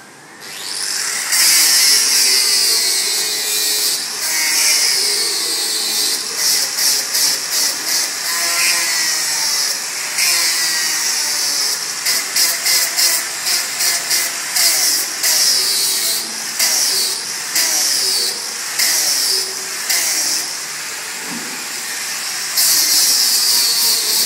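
Angle grinder grinding steel sheet: a loud high whine whose pitch dips each time the disc bites into the metal, with a run of short touches on and off the surface through the middle stretch.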